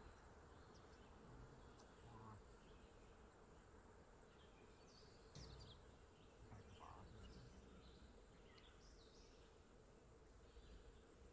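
Near silence: faint outdoor ambience with scattered faint, short high chirps.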